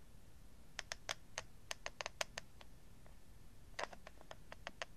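Hot glue gun's trigger feed clicking as the trigger is squeezed to push out glue: faint, sharp clicks in two irregular runs, one starting about a second in and another near the four-second mark.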